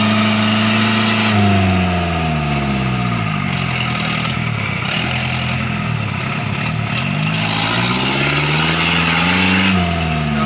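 Vehicle engine held at steady revs, then falling away about a second in. It runs low and uneven through the middle, climbs back up, and drops again near the end.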